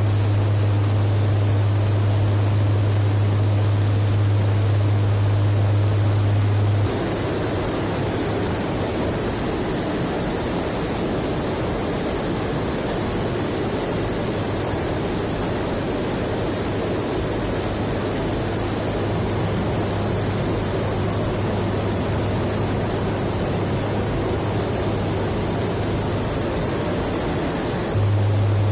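KC-130J Hercules turboprop engines and propellers running steadily, with a strong low hum over a rushing noise. About seven seconds in the sound switches abruptly to a rougher rush with a weaker hum, and the strong hum returns near the end.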